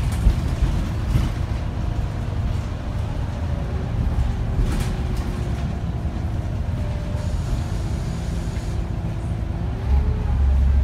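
Scania Omnicity (CN94UB) bus with a ZF automatic gearbox, heard from inside the saloon: steady low engine and road rumble, with a drivetrain whine that falls and then rises again in pitch as the bus runs through its gears. There are a few short rattles, and the low rumble grows louder near the end as the bus pulls harder.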